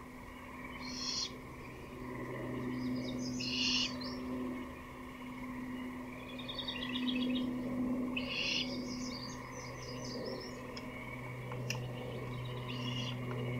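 Songbirds singing short, high, chirpy trilled phrases every two or three seconds, over a steady low hum.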